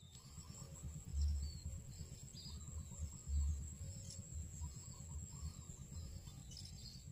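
Swamp ambience: a steady high-pitched insect buzz with scattered short high chirps, over uneven low rumbles that swell about a second in and again a little past three seconds.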